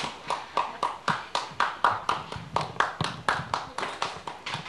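Steady rhythmic hand clapping, about four claps a second.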